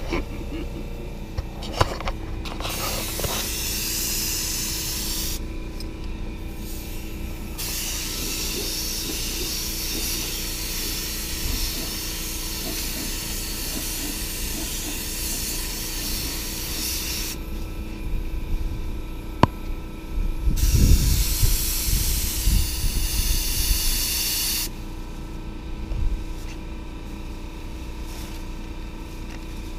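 Air-powered gravity-feed paint spray gun hissing as it sprays touch-up paint, in three bursts: a short one a couple of seconds in, a long one of about ten seconds, and another of a few seconds about two-thirds of the way through. A steady low hum runs underneath.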